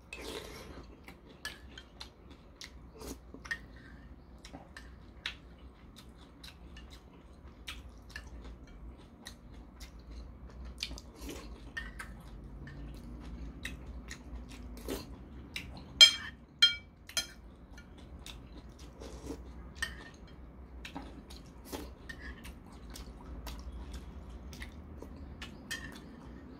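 A man eating noodle soup: quiet chewing and slurping of udon, with scattered clicks of a metal spoon and fork on a ceramic bowl. The loudest is a short run of ringing clinks about 16 to 17 seconds in.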